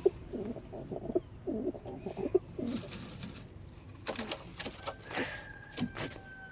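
Domestic pigeons cooing, a run of low coos over the first three seconds, followed by a few sharp clatters and rustles in the loft.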